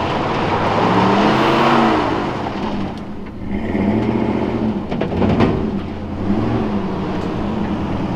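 Dodge Dakota pickup's V8 engine revving up and down several times as the truck is driven hard in circles on dirt. The engine is still running after an oxygen tank blew up in its bed.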